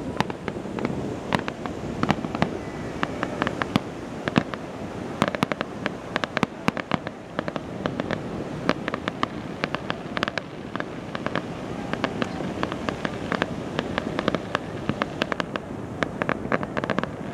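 Fireworks display: aerial shells bursting, with dense, irregular crackling pops all through and a steady low rumble underneath.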